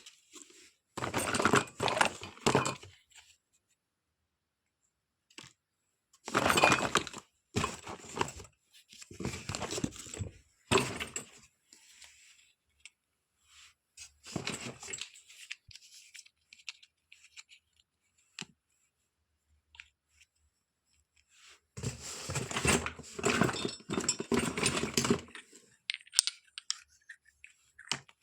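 Small plastic toy kitchen pieces and their packaging handled in several bursts of clinking, clattering and rustling, with silent gaps between. The longest burst comes near the end.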